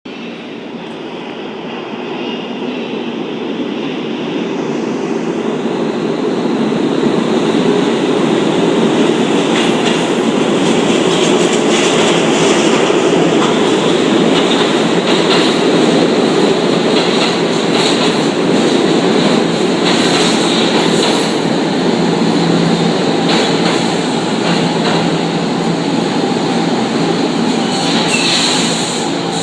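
R46 subway train pulling into a station: the rumble of its wheels on the rails grows louder over the first several seconds as it arrives. The wheels clack over rail joints through the middle, and there is a brief high squeal near the end as it brakes for the stop.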